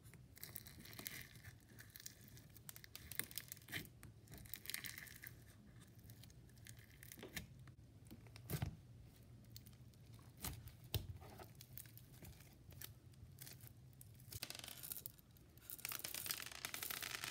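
Fishbowl slime (clear glitter slime full of small fishbowl beads) being pressed and squished by fingers: faint, irregular crackling and popping clicks. Near the end, a stream of beads pours onto the slime with a dense, light rattle.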